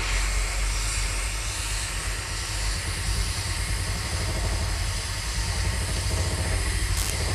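Hot air rework station blowing a steady hiss of air onto a laptop motherboard to desolder a power-regulator IC, with a constant low hum underneath. A single short click comes near the end.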